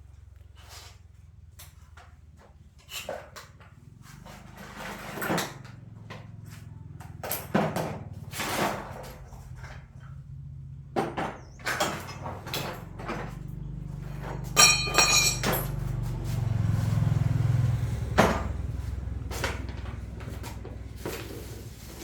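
A string of knocks and clanks, with a low hum that swells up and fades in the second half and a brief ringing tone about two-thirds of the way through.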